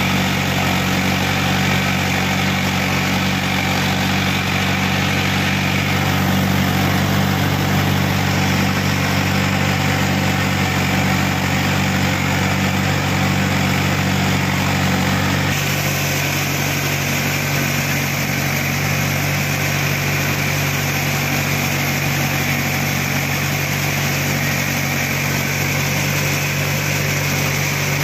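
Mahindra 415 DI tractor's four-cylinder diesel engine running steadily under load while driving a Gyrovator rotary tiller. The engine note shifts slightly about halfway through.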